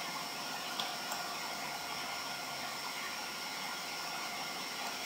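Steady background hiss with faint whining tones, and two faint clicks about a second in. No relay click answers the output being toggled.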